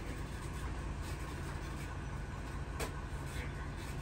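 Car driving, heard from inside the cabin: a steady low rumble of engine and road noise, with a faint tick near the end.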